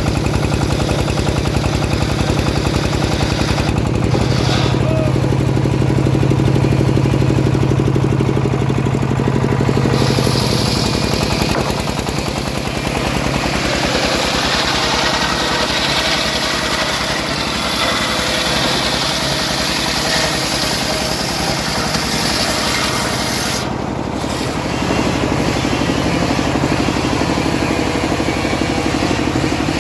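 Engine of a homemade sawmill running steadily under load. From about a third of the way in, a hiss that fits the saw cutting through teak joins it, and it drops away shortly before the end.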